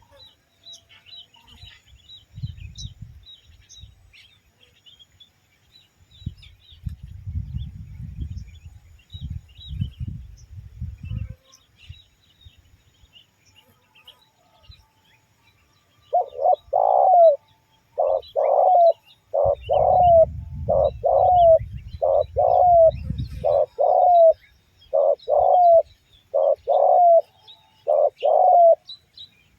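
Spotted dove (tekukur) cooing: from a little past the middle, about a dozen short, loud coos in quick succession, roughly one a second, each dropping in pitch. Earlier on, faint chirps from small birds and patches of low rumbling noise.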